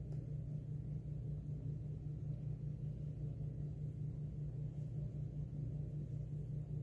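A steady low hum with no breaks or changes.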